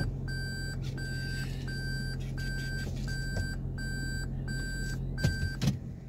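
Electronic warning beeper sounding a steady series of pitched beeps, about three every two seconds, over a steady low vehicle hum. Both cut off shortly before the end.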